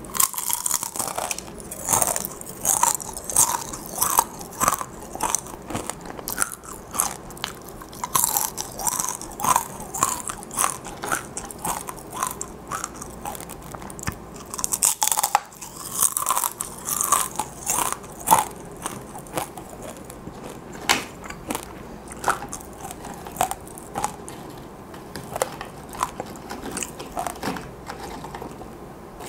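Crisp crunching of fried, sugar-coated dried chili pepper chips (gochu-twigak) being bitten and chewed: sharp crunches several a second, coming in bouts of chewing.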